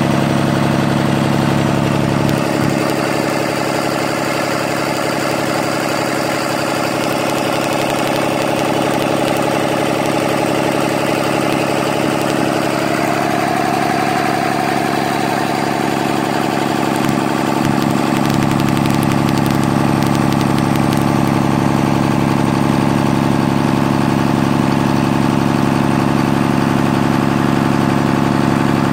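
Cummins QSB5.9 inline-six turbo diesel engine running steadily at idle after its overhaul.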